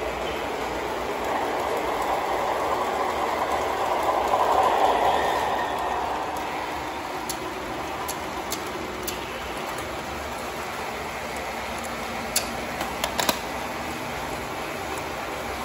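O gauge model train running on three-rail track, loudest in the first few seconds, then settling to a steadier, quieter run. Several light clicks come in the second half.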